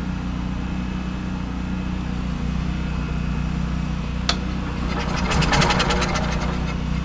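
Generator engine running with a steady low drone. About four seconds in there is a sharp click, then a fast, rattly sputtering. It is running only on fuel poured down the carburetor, which the owner puts down to the electric fuel pump not getting power.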